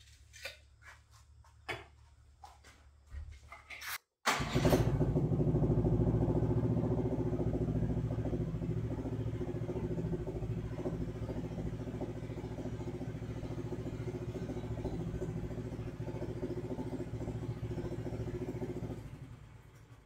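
AGT LH12R mini excavator's engine running steadily while the hydraulics lower the boom and bucket to the floor. It comes in suddenly about four seconds in and fades out near the end; before it there are only a few faint clicks.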